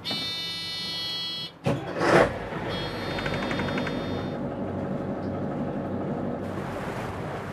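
Fishing boat engine start: an electronic warning buzzer on the control panel sounds for a second and a half, a loud burst comes as the engine is cranked and fires, a second buzzer sounds briefly, and the boat's engine then settles into a steady idle.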